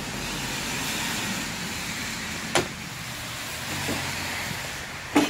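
Steady background hiss and rumble with two sharp knocks, one about halfway through and one near the end.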